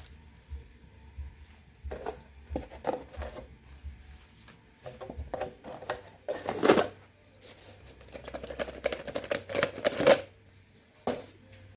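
Chainsaw parts and tools handled on a workbench: irregular clicks and knocks with short stretches of scraping and rubbing. The loudest clatter comes about two-thirds of the way through.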